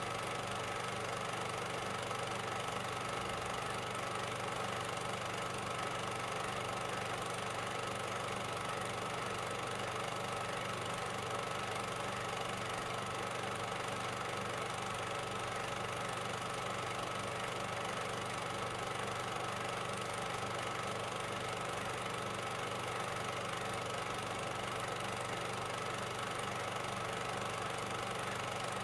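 A steady, unchanging machine-like drone with a constant hum, with no separate bangs or changes in pitch.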